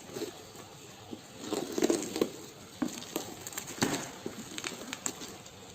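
Packaging being handled: rustling and crinkling with scattered light clicks and knocks.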